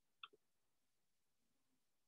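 Near silence: room tone, with one faint computer mouse click about a quarter second in.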